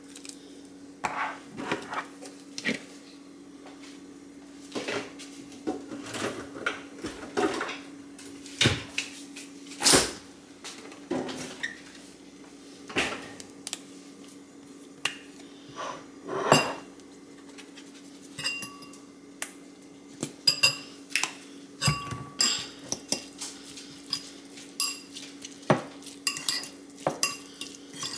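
Metal fork clinking and scraping against a ceramic bowl as tuna is mixed, in irregular taps and knocks, some of the clinks ringing briefly. A steady low hum runs underneath.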